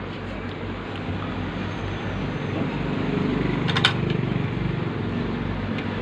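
Steady hum and background noise, with one short sharp click a little under four seconds in as the hair dryer's plastic fan housing is handled and fitted.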